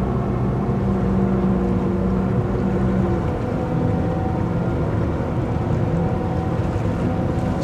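Twin Ilmor 5.3-litre V8 sterndrive engines of a Formula 290 Bowrider running at low rpm under joystick control, working the drives to walk the boat sideways. A steady engine drone; its strongest low tone weakens about three seconds in.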